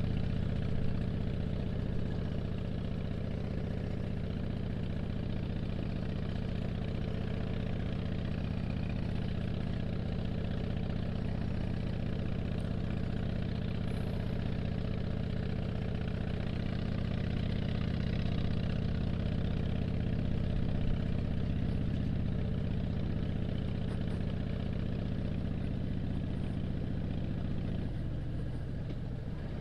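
2007 Harley-Davidson Dyna Street Bob's Twin Cam 96 V-twin running at a steady cruise at about 35 mph under way. The engine note drops slightly near the end.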